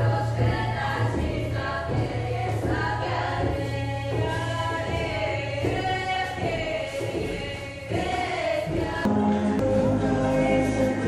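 Background music with a choir singing over a steady bass line; the music changes about nine seconds in.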